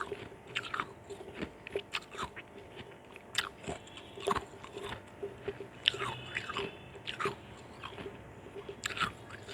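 Ice chunks being bitten and crunched between the teeth, a quick irregular run of sharp crunches.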